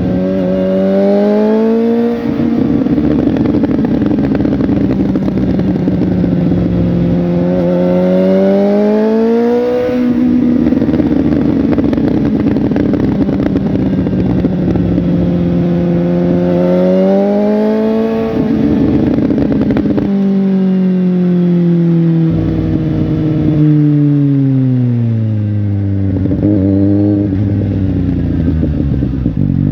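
Suzuki GSX-S750 inline-four engine running, its note climbing and then holding steady, climbing again, then falling away slowly as the revs drop, with a couple of quick blips before it rises again near the end.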